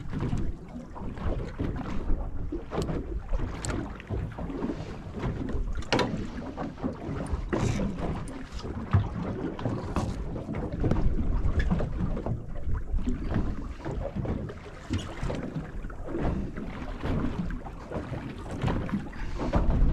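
Wind gusting over the microphone and chop slapping against a small boat's hull, with scattered clicks and knocks as bait and tackle are handled.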